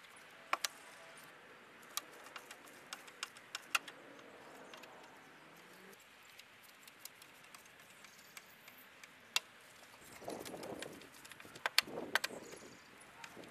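Scattered light clicks and taps of a screwdriver and plastic engine-bay parts being handled, with a short rubbing rustle about ten seconds in and again near the end.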